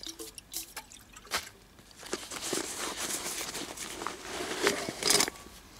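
A few light knocks, then, from about two seconds in, steady rustling and scraping of fabric as hands rummage in a camouflage pouch, with a couple of louder scuffs near the end.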